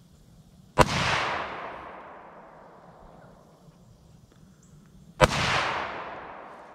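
Two rifle shots from a scoped rifle, about four and a half seconds apart, each a sharp crack followed by a long echo fading away over a second or two.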